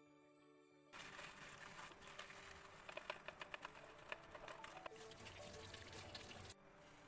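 Red plastic hand-operated vegetable chopper working on green chillies, a run of quick rattling clicks from its blades. This gives way to water running from a tap over tomatoes, which cuts off shortly before the end.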